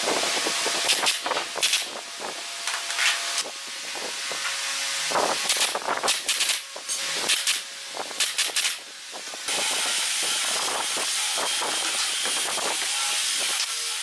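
Sharp clicks and knocks of wood and tools being worked on a pine frame, including pneumatic nailer shots. About two-thirds of the way in, a steady hiss of compressed air from the nailer and its air hose starts suddenly and carries on.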